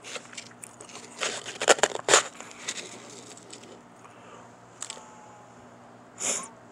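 Ice being crunched in the mouth: a mix of powdery shaved ice and crushed ice giving soft and hard crackly crunches, thickest in the first three seconds and loudest about two seconds in, then tapering off. A short hiss comes near the end.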